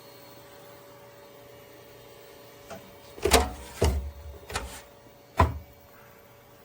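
Faint steady hum, then four sharp knocks and clunks in quick succession over about two seconds from about halfway in.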